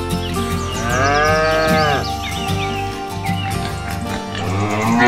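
A cow mooing twice over background music. Each moo rises and then falls in pitch. The first comes about a second in and lasts about a second; the second starts near the end.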